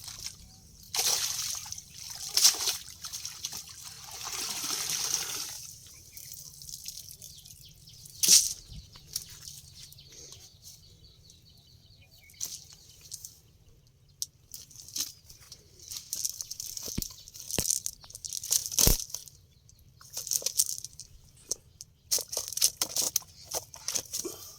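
Water splashing and dripping in irregular bursts, with several sharp knocks, the loudest about eight seconds in and near nineteen seconds.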